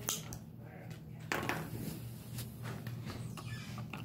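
A dog's claws clicking and tapping on a hardwood floor as it walks carrying a chew, in scattered short clicks over a steady low hum.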